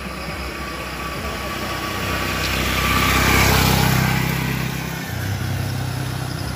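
A motor vehicle passes close by on the road. Its engine and road noise build to a peak about halfway through, then fade, and another small engine keeps running after it.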